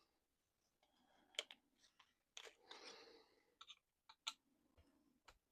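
Faint, scattered clicks and a soft rustle of small RC truck parts being handled on a bench, with near silence between them.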